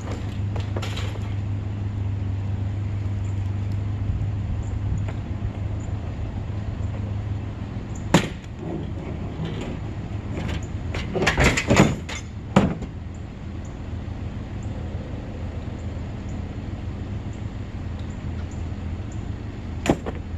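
Nissan pickup truck engine idling steadily, with a sharp knock about eight seconds in, a short burst of clattering knocks a few seconds later, and one more knock near the end.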